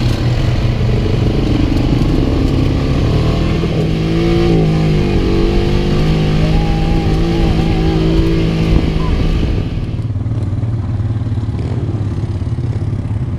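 Side-by-side UTV engine running under way on a dirt trail, its pitch rising and falling with the throttle in the middle. About ten seconds in, the sound cuts to a quieter, steadier engine note.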